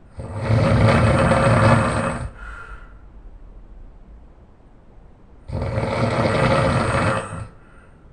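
A person snoring loudly: two long snores about five seconds apart, each lasting about two seconds and trailing off into a short, softer breath.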